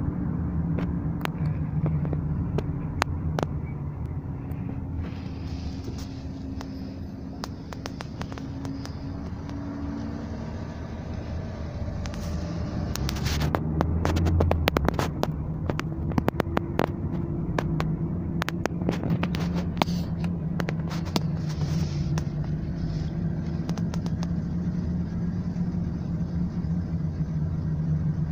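Car driving along, heard from inside the cabin: a steady low engine hum and road rumble, with a cluster of clicks and knocks about halfway through.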